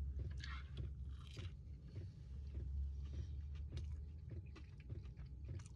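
A person chewing a bite of thick, fluffy pancake with a crispy outside, with quiet, irregular crunching over a steady low hum.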